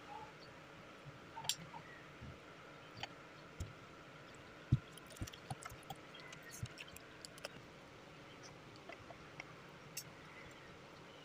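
Faint mouth sounds of someone chewing sticky rice: scattered soft wet clicks and a few low thumps, busiest in the first half, with a single light click near the end.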